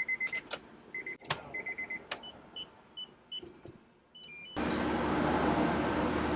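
Short electronic beeps and a few sharp clicks. About four and a half seconds in, the starter motor begins steadily cranking over the Honda S2000's F22C engine on its first start after a timing chain service.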